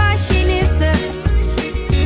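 Background music with a steady beat and a pulsing bass line.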